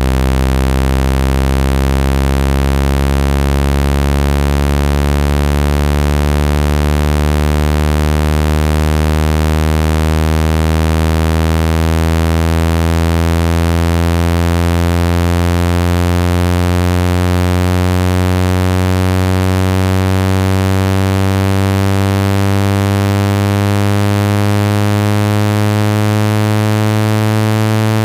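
Loud, low buzzing speaker-cleaner tone, rich in overtones, slowly rising in pitch; it is played through a device's speaker to vibrate water and dust out of it.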